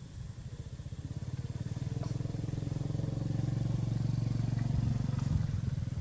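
Engine of a passing motor vehicle, a low pulsing hum that grows louder, is loudest about four to five seconds in, then starts to fade.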